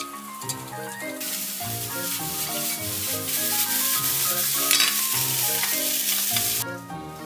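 Kimchi fried rice with sausage sizzling in a hot frying pan as it is stirred with a spatula and tossed. The sizzle starts suddenly about a second in and cuts off near the end.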